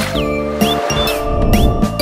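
Background music: held notes with short sliding tones recurring in a regular pattern.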